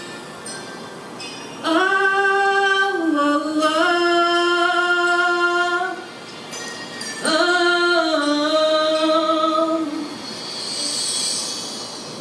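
A woman's voice singing long held wordless notes in two phrases, the pitch stepping down within each, over a quieter instrumental backing track played from a phone.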